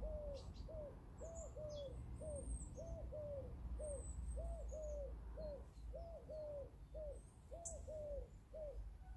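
A dove cooing: short repeated coo notes, about two a second, in a pattern of a pair then a single note, stopping shortly before the end. Faint high chirps of small birds sound over it.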